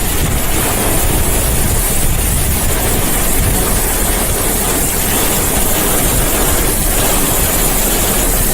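Heavy rain and gusting wind beating on a car driving through a thunderstorm: a loud, steady rushing noise.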